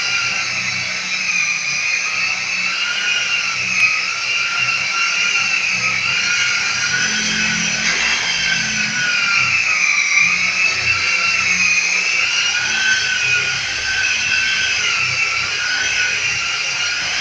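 Corded handheld electric sander running continuously against a burnished cement wall, its high motor whine wavering slightly in pitch as it is pressed and moved over the surface.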